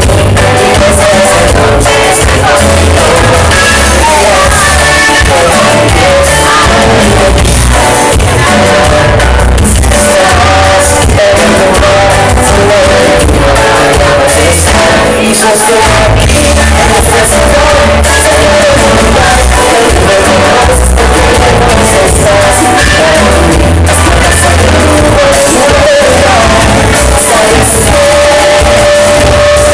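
Loud live band music with a male lead singer over a heavy, steady bass beat.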